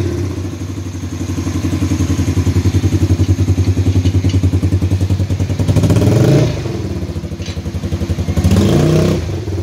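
300cc petrol ATV quad bike engine running with a steady, even pulsing beat, revved up briefly twice: once about six seconds in and again near the end.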